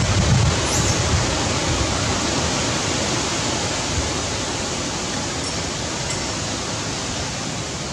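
Steady wind noise: an even rushing hiss that eases slightly toward the end, with no animal calls.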